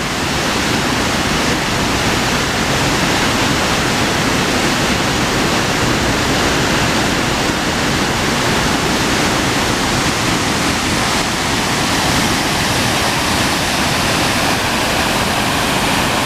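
Waterfall running in spring melt, not frozen: a loud, steady rush of falling water.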